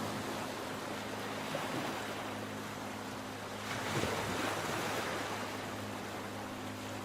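Mediterranean sea waves washing onto the shore in a steady rush, with one wave surging louder about four seconds in. A faint steady low hum runs beneath.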